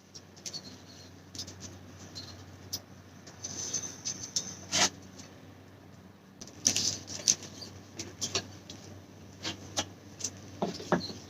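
Scattered clicks, taps and rustling of objects being handled by hand, loudest about halfway through, over a faint steady low hum.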